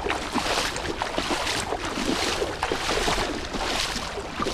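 A person wading through shallow muddy water, the water splashing and sloshing with each stride in repeated surges.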